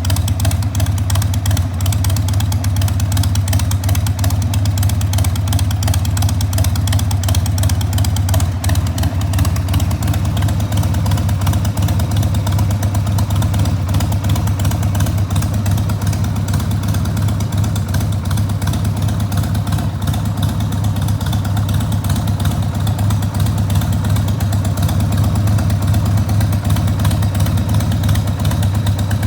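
1994 Harley-Davidson Sportster XLH1200's air-cooled Evolution V-twin idling steadily through Screamin' Eagle turnout silencers.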